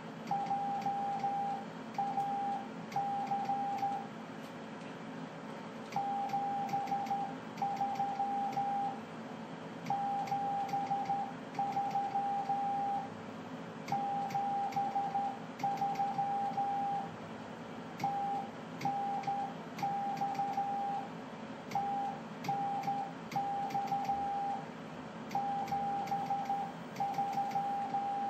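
Morse code sidetone from a hand-worked key as the operator sends CW: a single steady beep tone switched on and off in characters and groups, with short pauses between them and faint key clicks. A steady low hum from the station equipment runs underneath.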